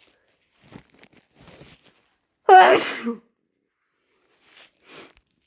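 One loud wet sneeze about two and a half seconds in, a hayfever sneeze brought on deliberately. Faint sniffs and breaths come before and after it.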